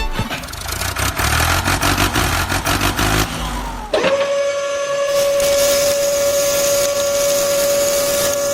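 Truck engine running: a rough rattling rumble with rapid clicks, then about four seconds in a sudden switch to a steady high-pitched whine.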